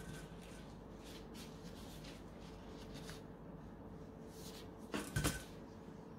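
Faint rustling of a clear plastic food-prep glove as fried qatayef are handled on a serving plate, with two or three quick light knocks about five seconds in.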